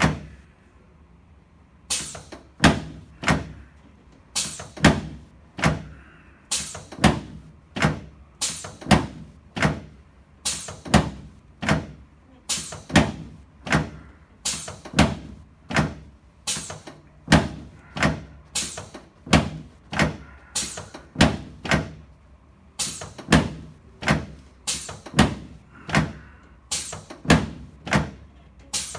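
Repeated sharp thumps of chiropractic thrusts on a treatment table, a long series of knocks about two a second, often in close pairs, starting about two seconds in. They are the adjustment of the patient's left sacroiliac joint.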